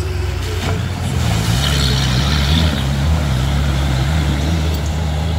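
Small homemade tractor's engine running hard as it ploughs through deep mud, its pitch stepping up and down with the throttle. There is a rush of spraying noise about two seconds in.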